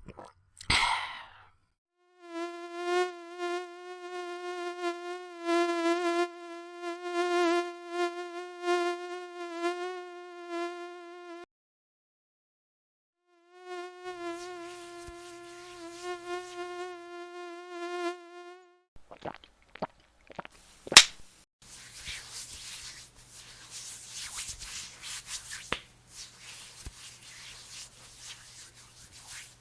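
Mosquito buzzing sound effect: a steady, slightly wavering drone in two long stretches with a short break between them. About two-thirds of the way through come a few sharp clicks and one loud crack, followed by a steady hiss.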